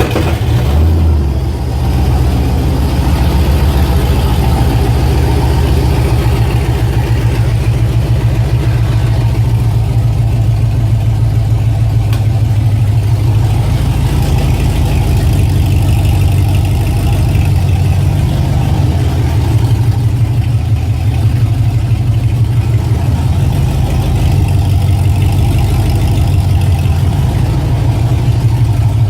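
Holden Commodore engine running loud and steady in drive, picking up right at the start, with the rear wheels spinning on a freshly rebuilt 3.9 mini-spooled diff. The engine is too loud for any diff noise to be heard.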